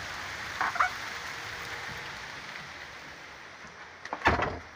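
Steady rain hiss, fading as it goes on. A brief squeak comes under a second in, and a loud thump near the end.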